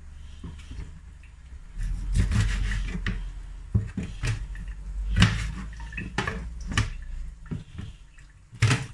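Knife and gloved hands working a whole mackerel on a plastic cutting board: irregular knocks of the blade and fish against the board, with short wet scrapes and squelches as the fish is rubbed and cut.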